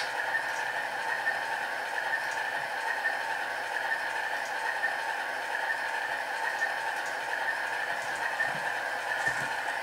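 Sound decoder in an HO-scale model of a GE AC4400CW diesel playing a steady locomotive engine sound through its small cell-phone speakers, wired in series. The sound is thin, with no bass, and runs without a break, with a few faint ticks over it.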